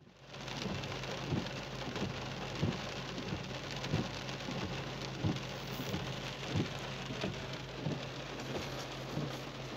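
Rain pattering on a car's roof and windscreen, heard from inside the cabin, with the windscreen wipers thumping at each sweep about every 1.3 seconds over a low steady hum.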